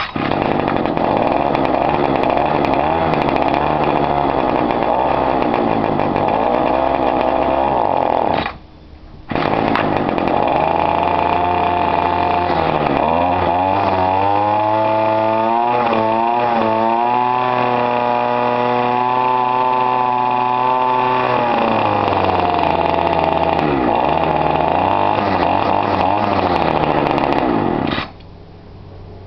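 Small petrol engine of a strimmer on a cold start: it fires and runs unevenly, cuts out for a moment about eight seconds in and picks up again, then settles to a steady idle with its pitch wavering before stopping suddenly near the end.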